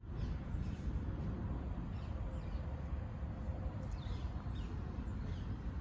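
Outdoor background: a steady low rumble with a few faint, short bird chirps scattered through it.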